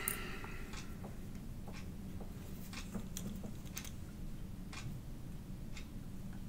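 Faint, regular ticking about once a second over a low steady hum.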